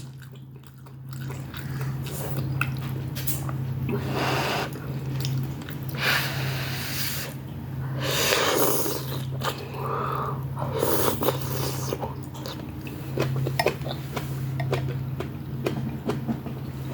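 Close-miked chewing of noodles and beef, with many small wet mouth clicks and several heavy breaths through the nose of about a second each, over a steady low hum.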